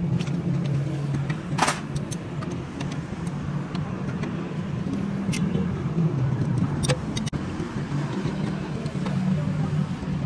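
A steady low engine drone, with scattered short clicks and taps over it.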